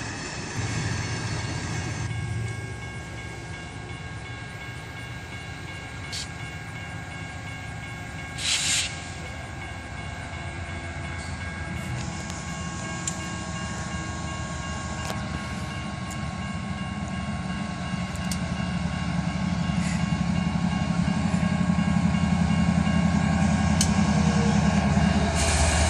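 BNSF GE diesel freight locomotive approaching, its engine rumble growing steadily louder as it nears. A brief loud burst of noise comes about eight seconds in.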